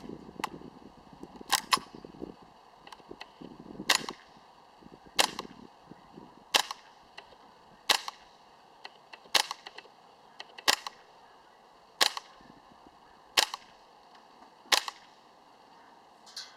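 G&G Combat Machine M4 gas blowback airsoft rifle firing single shots, each a sharp crack of gas release and bolt cycling. About a dozen shots come slowly and evenly, a little more than a second apart.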